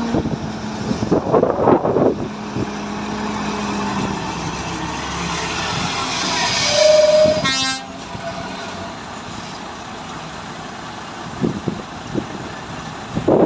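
Heavy diesel tractor unit hauling an oversize low-bed load, its engine running as it crawls past. The engine note swells to its loudest about seven seconds in with a short horn toot, then drops to a quieter steady run.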